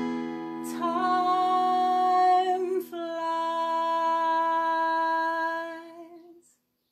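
A woman's voice singing two long held notes over a strummed acoustic guitar chord left ringing. The song ends with the sound fading out about six seconds in.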